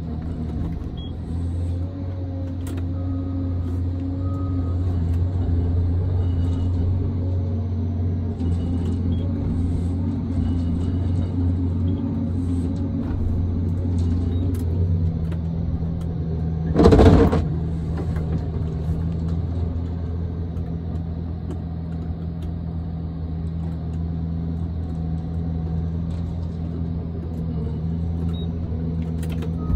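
Diesel engine and hydraulics of a John Deere 1270G forestry harvester running steadily, heard from inside the cab, with the drone changing pitch about halfway through. A brief loud burst comes shortly after the pitch change.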